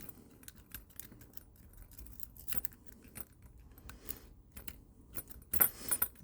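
Lock pick working the pins of a lock: small metallic clicks and scrapes of the pick and tension wrench in the keyway, with a few louder clicks near the end.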